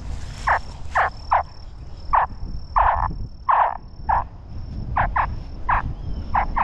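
Electronic alligator call playing short chirping grunts like a hatchling alligator's distress call, repeated two or three times a second at an uneven pace, to draw in an adult gator. Low wind rumble on the microphone underneath.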